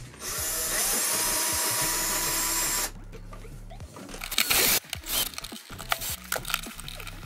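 Cordless drill/driver running the mounting screws of an electrical receptacle into a wall box. The motor runs steadily with a whine for about three seconds, then stops, followed by a few shorter bursts a little past halfway.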